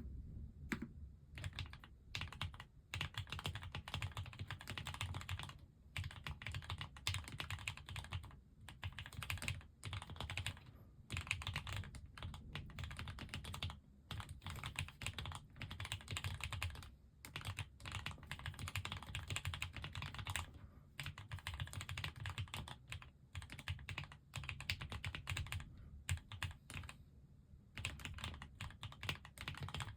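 Fast, continuous typing on a KBDfans Agar custom mechanical keyboard with Gateron Pro Ultra Glory Yellow linear switches: rapid deep-toned keystrokes with a few brief pauses between bursts.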